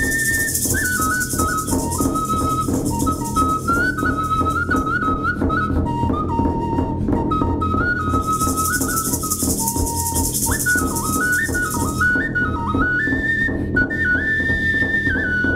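Clay flute playing a melody of short stepped notes in a high, whistle-like register, over a low steady backing. A rattle shakes in stretches near the start, in the middle and near the end.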